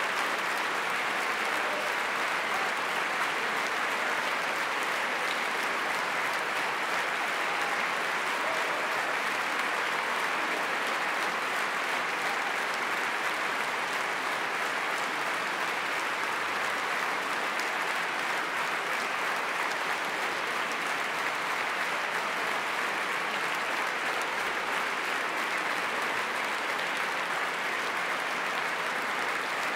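Steady, unbroken applause from a large audience filling a concert hall, with no rhythmic clapping.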